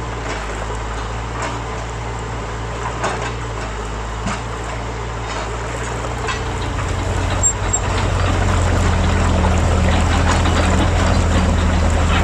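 Radio-controlled model construction machinery running: a steady, low diesel-like engine sound that gets louder about seven seconds in, with scattered light clicks and knocks.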